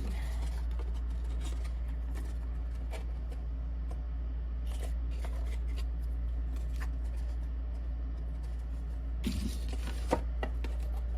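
Light handling of chipboard and paper craft pieces: scattered small taps and clicks, a brief rustle about nine seconds in and a sharp tick just after, over a steady low hum.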